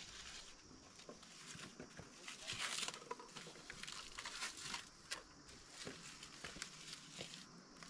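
Faint rustling and crinkling with scattered small clicks, loudest for a moment about two and a half to three seconds in.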